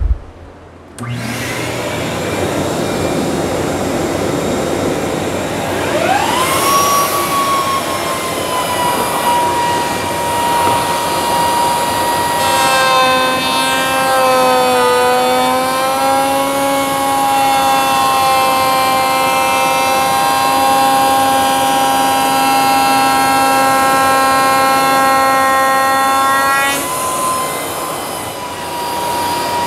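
Table-mounted router with a 45-degree chamfer bit, its motor spinning up with a rising whine and then running at a steady high pitch. From about twelve seconds in until near the end the bit cuts hard maple, and the whine takes on a fuller, rougher tone that sags in pitch briefly under load before the router runs free again. A steady rushing noise comes on about a second in, under the whine.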